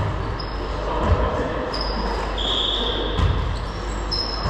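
A few dull thuds on a hardwood gym floor, about a second apart and irregular, and several brief high squeaks, over the steady echoing background of a large gym hall.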